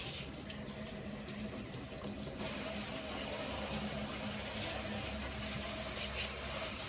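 Tap water running and splashing in a sink as the roots of pothos cuttings are rinsed under it; the splashing gets brighter about two and a half seconds in.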